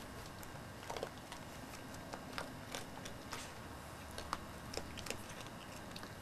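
A deer and a raccoon crunching scattered feed: irregular sharp clicks and cracks, roughly a dozen, over a steady hiss.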